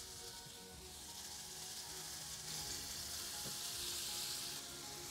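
Diced bacon sizzling as it fries over high heat in a little oil in a stainless steel saucepan, stirred with a silicone spatula. The sizzle grows louder about halfway through.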